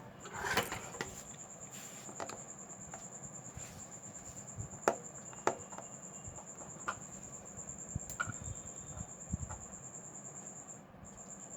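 Scattered light clicks and taps from handling a smartphone and small repair tools, over a steady high-pitched tone that drops out briefly near the end.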